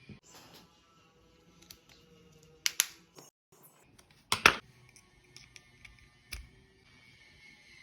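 Scattered sharp clicks and knocks of small hard objects being handled, with a pair of clicks about three seconds in and the loudest knock about four and a half seconds in, against faint room tone.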